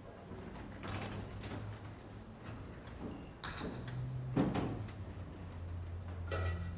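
Scattered knocks and clinks of metal altar vessels being handled and set down, about five over a few seconds, over a low steady hum.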